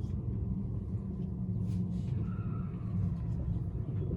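Steady low rumble of a Thunderbird limited express electric train running along the line, heard from inside the passenger car.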